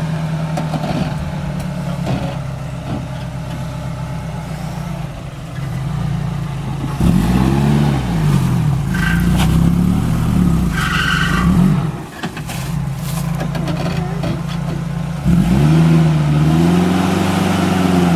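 Mitsubishi L300 4x4 van's 2.4-litre 16-valve petrol engine running under load as the van crawls up a rock step, its revs rising and falling several times, most clearly from about seven seconds in and again near the end. The engine lacks the low-end torque for the climb.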